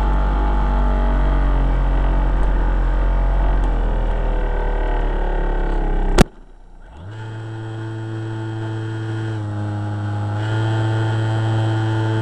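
Electric motor and propeller of a foam RC airplane heard from a camera mounted inside it: a steady droning whine, broken about six seconds in by a single sharp crack, after which the sound drops out briefly and returns as a steady drone at a different pitch, shifting in steps.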